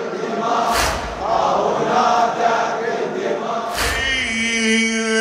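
A crowd of mourners chants a Husseini latmiya refrain together, with two heavy slaps in unison about three seconds apart from the crowd's rhythmic chest-beating (latm). From about four seconds in, a man's voice holds one long, steady note.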